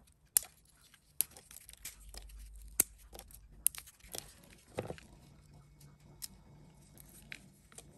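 Pecan shells cracked and peeled apart by hand: several sharp snaps in the first four seconds, then softer crackling of shell pieces breaking off.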